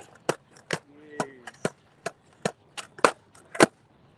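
Skateboard clacking during freestyle footwork tricks: a quick series of about ten sharp knocks, two to three a second, as the board's tail, nose and wheels hit the ground.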